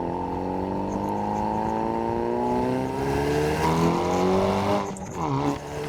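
Hyundai Veloster N's turbocharged 2.0-litre four-cylinder, fitted with a catless downpipe and with its exhaust in normal mode, pulling under acceleration with its pitch slowly rising. About five seconds in there is a gear change: the pitch drops, then it pulls again.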